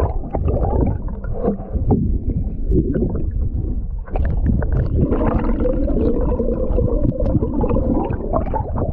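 Muffled underwater sound of river water gurgling and rushing around an action camera held just below the surface, a dense low rumble that dips briefly about four seconds in.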